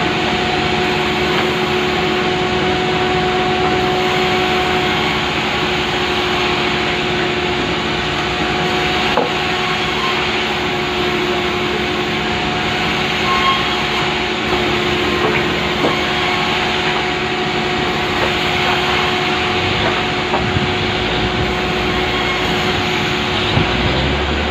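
Power saw ripping lengthwise through a large pulai log, running steadily under load with a constant high hum.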